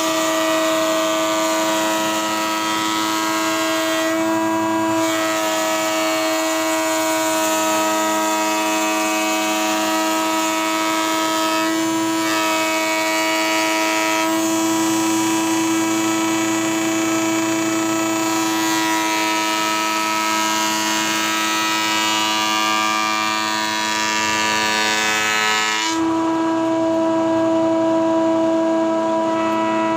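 Table planer running, its motor giving a steady whine, with the hiss of the cutter head planing wood as a board feeds through. The cutting noise stops suddenly near the end while the motor keeps running.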